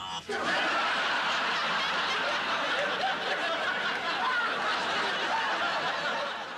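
Studio audience laughing in a long continuous wave that eases off near the end.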